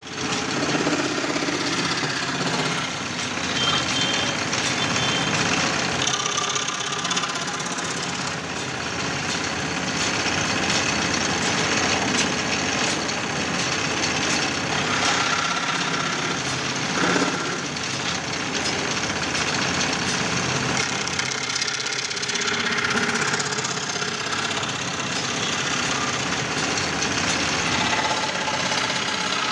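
Homemade belt-driven scroll saw with long wooden arms running, its blade stroking up and down through plywood in a steady, rapid clatter.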